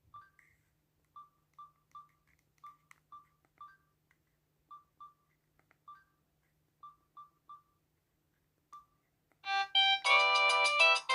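Samsung SM-B312E mobile phone giving a string of short, faint beeps of one pitch at uneven intervals, like key presses while scrolling its menu. Near the end a loud ringtone melody starts playing.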